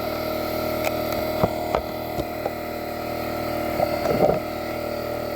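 A steady machine hum holding several fixed pitches. Over it come a few sharp metal clicks and knocks, and a short scraping patch near the end, as the wheel is handled and fitted back on the mower.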